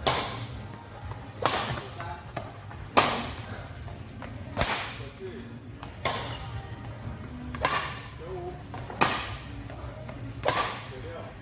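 Badminton racket strings smacking a shuttlecock on overhead clears. There is a sharp crack about every one and a half seconds, eight in all, some louder than others, each with a short echo from the hall.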